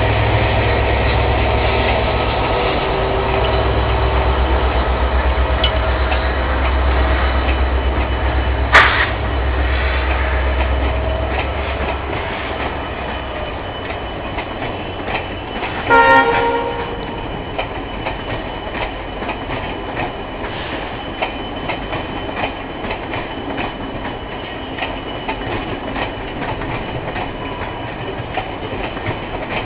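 WDP4 diesel locomotive's EMD two-stroke engine working hard as the express pulls away, its low rumble fading after about twelve seconds. A single sharp bang comes near nine seconds. A short train horn blast sounds about sixteen seconds in, and then the coaches roll on with steady clickety-clack over the rail joints.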